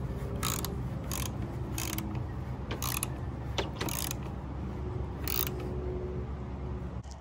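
Ratchet wrench clicking in about six short spurts, spaced irregularly, as the nut on a car battery's negative terminal clamp is tightened. A steady low hum runs underneath.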